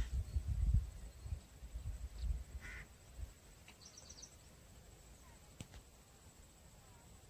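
Wind buffets the microphone with a low, gusty rumble for the first few seconds. A few faint bird calls follow, including a quick run of high chirps about four seconds in, and there is a single sharp click near the end.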